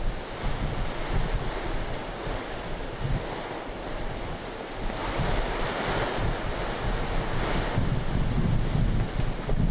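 Storm wind buffeting the microphone in gusts over the steady rush of heavy rain, swelling louder for a few seconds about halfway through.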